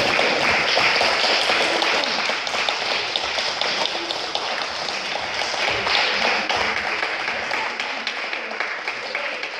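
Audience applauding: many hands clapping in a dense, steady patter that slowly eases off.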